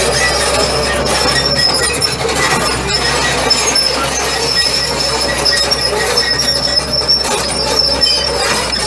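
John Deere 690E LC excavator's six-cylinder turbo diesel running, a steady low drone beneath a high-pitched metallic whine and squeal.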